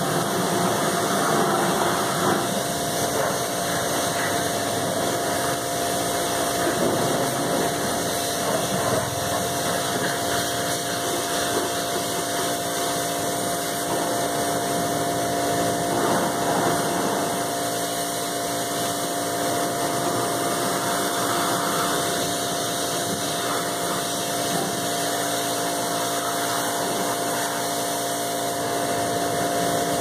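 Stihl RE 109 electric pressure washer running steadily, its motor-driven pump making a constant hum while the high-pressure jet hisses onto a car.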